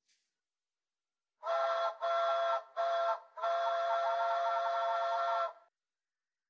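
Steam-locomotive whistle sound effect from the BRIO Smart Tech Sound toy train app: three short toots, then one long blast of about two seconds.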